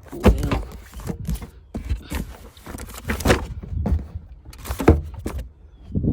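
A series of irregular, sudden thuds and knocks, spaced about half a second to a second and a half apart, with the loudest near the middle and end.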